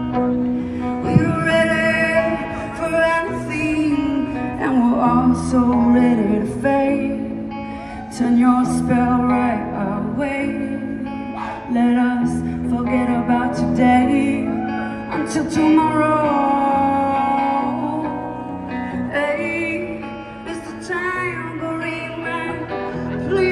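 Live band music through a large outdoor PA: guitar chords and drums, with regular cymbal and snare strikes, under a singer's voice carrying the melody.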